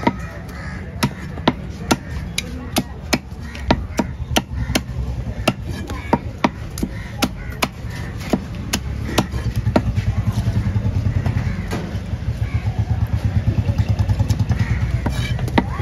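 A fish knife knocking against a wooden chopping block while red pomfret are cut and cleaned, about two sharp knocks a second. A low engine rumble runs underneath and grows stronger and pulses in the second half.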